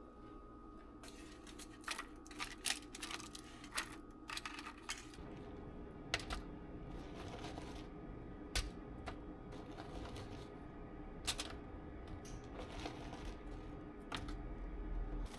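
Scattered light clicks and taps of small objects being handled, over a steady low hum that becomes louder about five seconds in.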